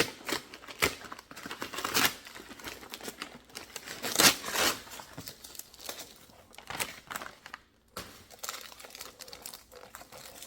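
A shipping package being opened by hand: packaging crinkling and tearing in irregular rustles and sharp rips, the loudest about four seconds in.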